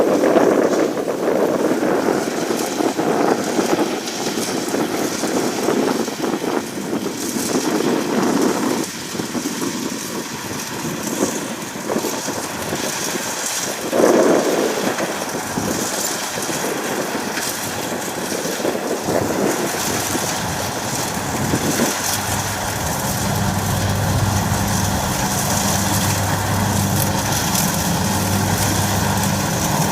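Kubota DC60 combine harvester running while harvesting rice: its diesel engine and cutting and threshing machinery make a steady mechanical noise. A steady low engine hum comes through more clearly in the last third.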